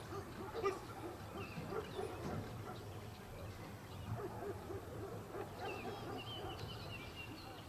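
Open-air background with small birds chirping, clearest a couple of seconds before the end, over a steady low murmur, and one short knock under a second in.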